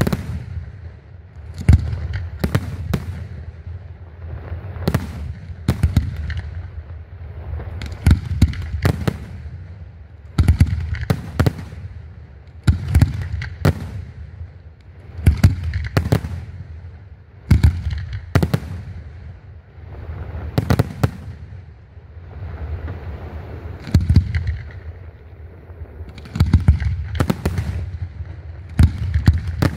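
Aerial firework shells bursting in rapid succession, with sharp bangs every second or two over a continuous low rumble of booms.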